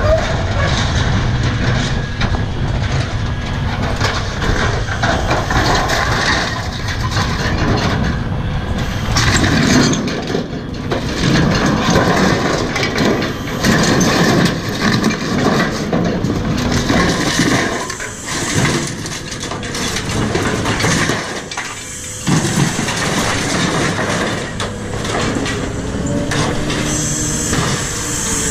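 Scrap metal clattering, banging and crashing as a crane's lifting magnet pulls it off a trailer and drops it, over the steady running of the machine's engine.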